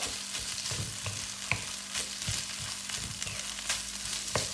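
Fried rice with soy sauce sizzling in a hot nonstick wok while a wooden spatula stirs it, with soft scraping and scattered light taps of the spatula on the pan.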